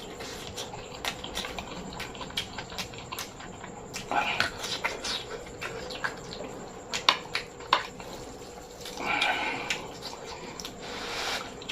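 Close-miked chewing and mouth sounds of a person eating a mouthful of rice with omelette and sambal: many small wet clicks, with two louder, longer noisy stretches about four and nine seconds in.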